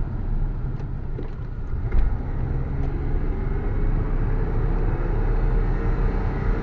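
BMW E34 under way: steady engine and road rumble, with a few light clicks and a knock about two seconds in, then the engine note rising slowly as the car gathers speed.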